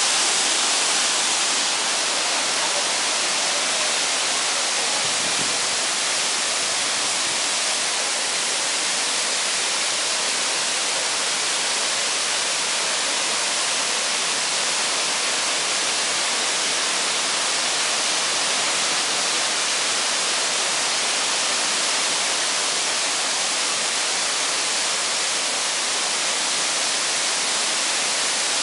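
Waterfall pouring over rock ledges: a steady, even rush of falling water.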